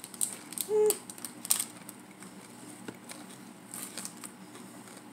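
Snack wrapper crinkling in a few short crisp crackles, near the start, about a second and a half in, and again around four seconds in. A brief hum-like tone sounds just under a second in.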